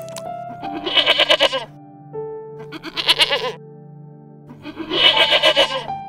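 An animal bleating three times, each call wavering in pitch, over background music with steady held notes.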